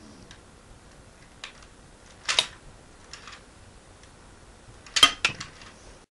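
Plastic clacking from a Lego brick-firing rifle shooting small bricks: a short burst of sharp clicks about two and a half seconds in and a louder burst of several clicks about five seconds in, with a few faint single clicks between. The later burst comes as a brick knocks over a standing Lego plate.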